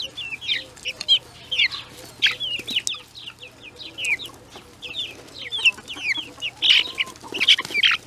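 A group of young chicks peeping constantly: many short, high chirps in quick succession, many of them sliding down in pitch, as they crowd round to be hand-fed bread.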